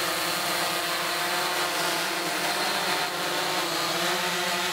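Multirotor camera drone hovering, its motors and propellers giving a steady buzzing hum at a constant pitch.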